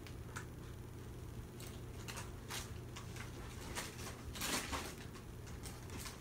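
Faint rustling and light clicks of photocards and plastic binder sleeves being handled, with a louder rustle about four and a half seconds in.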